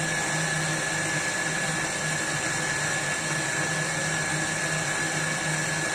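Steady mechanical hum with a constant high-pitched whine running through it, even in level throughout.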